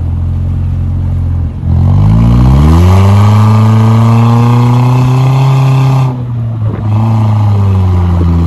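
Toyota Premio's engine through a custom-built exhaust, idling, then revved up about two seconds in and held high for a few seconds. It drops back at about six seconds, then revs again less high and eases off slowly.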